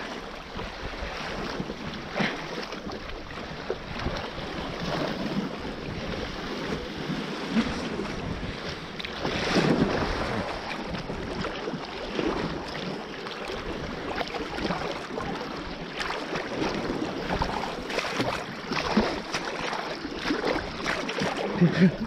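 Sea water sloshing and splashing around an action camera held at the surface by a swimmer, with irregular surges and wind buffeting the microphone.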